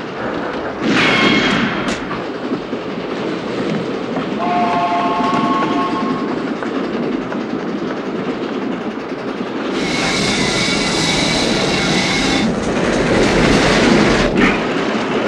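Moving train running, its wheels clattering on the rails, with three horn blasts: a short high one about a second in, a lower chord a few seconds later, and a longer high blast around ten seconds.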